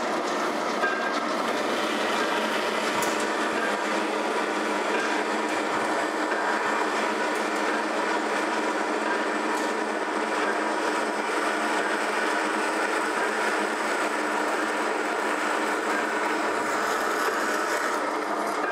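Marvel metal-cutting band saw running under power feed, its blade cutting through a metal bar: a steady whine over a rasping hiss.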